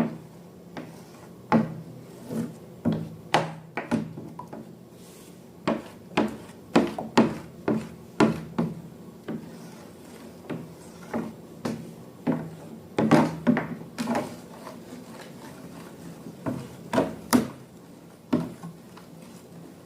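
Slime being stirred and handled, giving irregular sharp taps, clicks and squelches in clusters, over a faint steady low hum.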